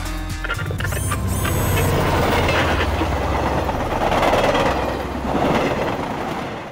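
Traffic noise: a steady rumble of vehicles with brief high squeals about a second in, cutting off abruptly near the end.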